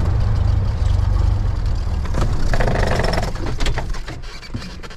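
A Cessna 172's four-cylinder piston engine idling, then shut down: the low engine rumble dies away over a few seconds as the propeller spins down and stops, heard inside the cockpit. A few light clicks follow near the end.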